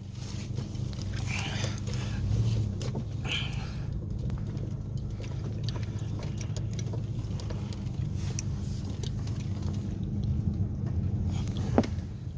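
Car engine running steadily with road noise as the car drives, with a couple of short squeaks early on and a quick falling squeak near the end.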